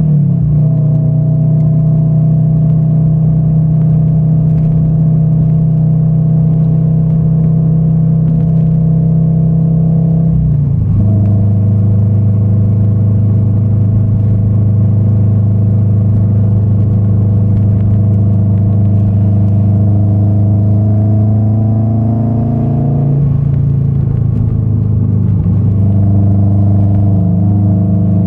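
Subaru BRZ's flat-four boxer engine with a catless, straight-piped exhaust, heard from inside the cabin while driving: a loud, steady droning exhaust note. It holds one pitch, then shifts abruptly to a new steady pitch about eleven seconds in and again after about twenty-three seconds.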